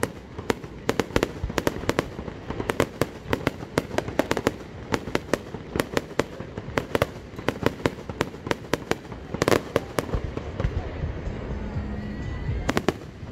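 Fireworks display: rapid volleys of shell bursts, bang after bang for about the first nine seconds. A loud cluster comes near ten seconds in, then the bangs thin out, with a last couple near the end.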